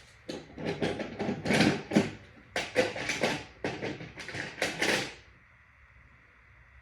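A quick run of irregular knocks and rustles of things being handled, stopping about five seconds in.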